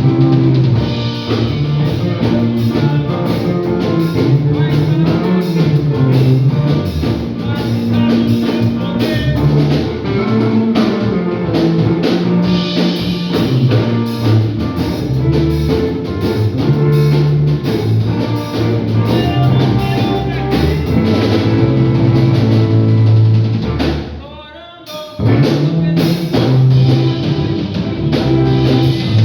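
A band playing a song in rehearsal, with drum kit, guitar and bass together. About three-quarters of the way through the music breaks off for about a second, then the band comes back in.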